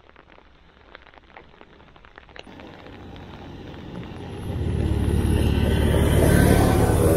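A motor vehicle driving past close by on a wet road. Engine hum and tyre hiss build up over a few seconds and are loudest in the second half.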